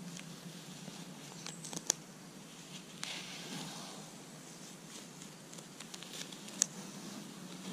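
ScotchBlue painter's masking tape being peeled off bus sheet metal beside a fresh bead of sealant: a faint rustle with scattered sharp little ticks, the loudest about two seconds in and another near the end.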